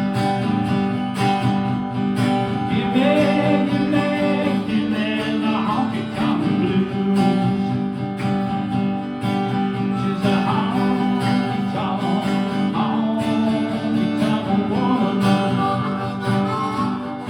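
Acoustic guitar strumming the chords of a country song's instrumental break, with a lead line sliding between notes above it.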